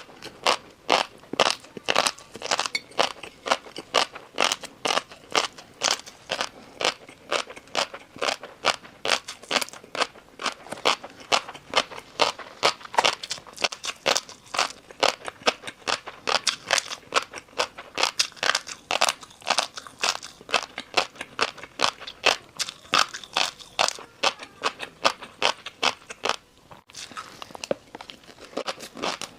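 Close-miked chewing of crunchy noodles: a steady run of sharp crunches, about three to four a second, briefly pausing near the end before going on more softly.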